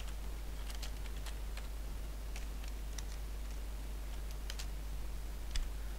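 Computer keyboard keys clicking as a short line of text is typed, in small irregular clusters with one sharper click near the end, over a steady low electrical hum.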